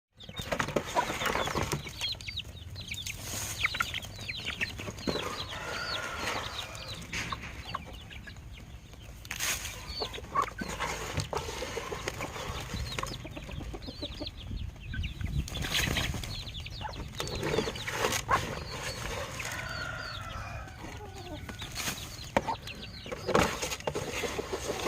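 A hen clucking while her young chicks call in many short, high peeps as they forage for food.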